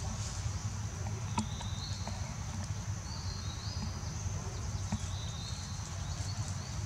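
Forest ambience: a steady high insect drone, with a short two-step call repeated four or five times and a few sharp clicks, over a low rumble.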